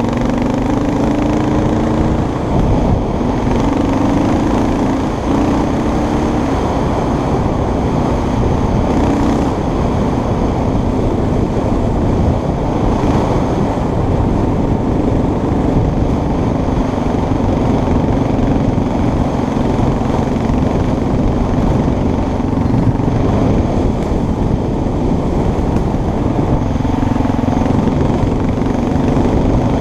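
Motorcycle engine running while riding at speed on a gravel road. Its pitch wavers up and down with the throttle in the first several seconds, holds steady through the middle and shifts again near the end. Steady wind and road noise run under it.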